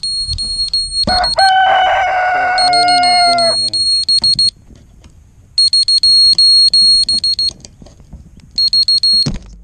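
An electronic piezo alarm beeper sounds in rapid pulsed bursts of about two seconds, with gaps of about a second between them, four times. Between about one and three and a half seconds in, a man's long, high-pitched cry sounds over it, and there is a thump near the end.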